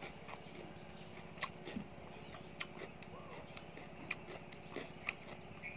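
A person chewing and smacking their lips while eating by hand, with scattered short wet mouth clicks.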